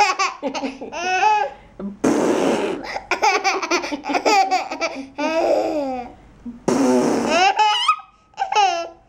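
A baby laughing hysterically in repeated peals of high, bouncing pitch, broken by a couple of rougher, breathy bursts.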